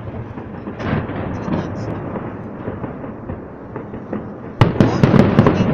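Aerial fireworks bursting: a low, continuous rumble of shells, then near the end a sharp bang followed by a quick run of crackling pops.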